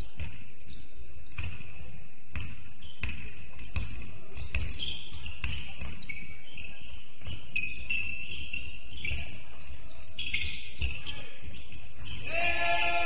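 Basketball bouncing on a hall floor in irregular thuds, with short high squeaks between them and a voice calling out near the end.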